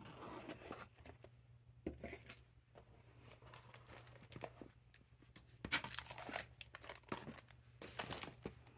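Hands unpacking a boxed leather planner: a rigid cardboard box lid lifted off and a cloth dust bag handled, giving light taps, scrapes and rustling. Louder bursts of rustling come about six seconds in and again near the end.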